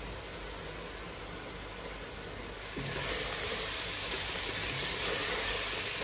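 Onions and a garlic, ginger and green-chilli paste sizzling in hot oil in a frying pan, a steady hiss that grows louder about three seconds in as the mixture is stirred.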